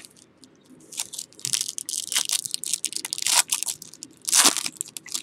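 Crinkling and tearing of a card pack's wrapper as a pack of football cards is opened, in a run of crackling bursts with the loudest rip near the end.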